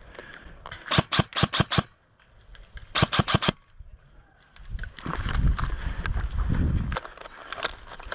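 Airsoft electric rifle (ICS PAR MKIII AEG) firing two short bursts of rapid shots, about a second in and about three seconds in, followed by a few seconds of dull handling and rustling noise.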